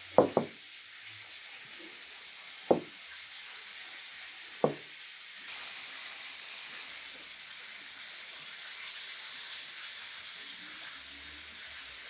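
Glass teapot and tea glasses set down on a cloth-covered table: a quick double knock, then two single knocks about two seconds apart, over a steady hiss that grows a little fuller about halfway through.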